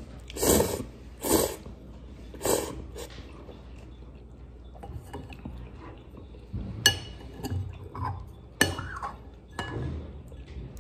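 Ramen noodles slurped three times in quick succession, loud and noisy. Later the ceramic soup spoon and chopsticks clink sharply twice against the ceramic ramen bowl, with a short ring after each, and softer knocks in between.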